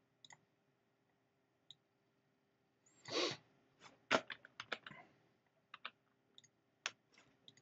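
Scattered computer mouse clicks and keyboard taps, several in quick succession about four to five seconds in, with a short hiss about three seconds in.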